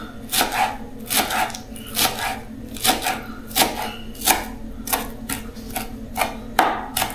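Knife chopping a bunch of fresh cilantro and dill, in even strokes about two a second.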